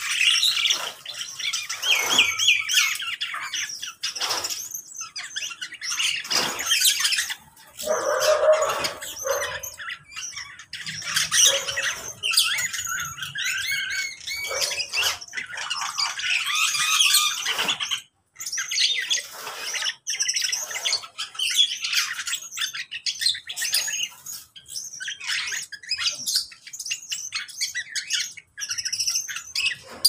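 A mixed aviary of small cage birds chirping and twittering over one another without pause, with sharper squawks now and then and one lower, harsher call about eight to ten seconds in.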